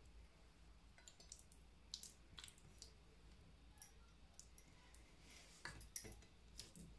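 Near silence with scattered faint clicks and soft squishes: fingers handling raw marinated beef cubes and pushing wooden toothpicks through them.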